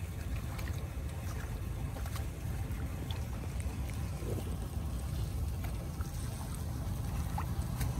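Floodwater draining into a curbside storm-drain inlet just cleared of its leaf-and-debris clog, a steady low rushing rumble, with small splashes of shoes stepping in the shallow water.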